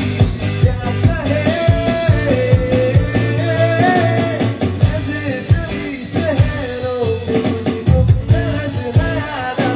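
Live male singing into a microphone, with a steady beat played by hand on an electronic percussion pad.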